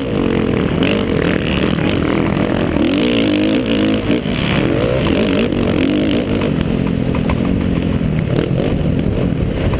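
50cc youth motocross bike's engine heard from the rider's helmet, revving hard and pitching up and down as the rider works the throttle and gears over the dirt track.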